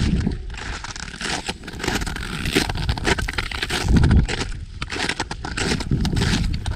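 Boots crunching and scraping in frozen snow with irregular steps, while wind buffets the microphone in low rumbling gusts, strongest about four seconds in.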